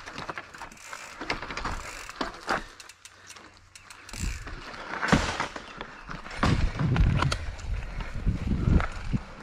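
Mountain bike ridden over rough trail, with irregular rattling clicks and knocks from the bike and ground. Heavier low thumps come in the second half.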